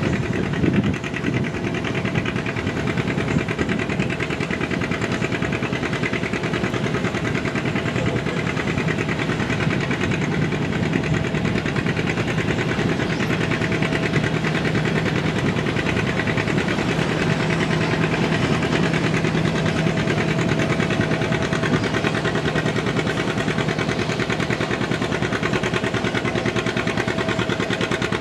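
John Deere two-cylinder tractor engine running under load as it pulls a weight-transfer sled, with a steady, rhythmic exhaust beat.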